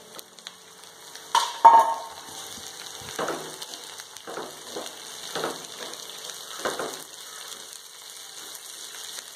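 Chopped green beans and onions sizzling in hot oil in a steel pan. About a second and a half in come two sharp metal clanks, the steel bowl knocking on the pan. After that a spatula scrapes through the pan in about half a dozen short strokes.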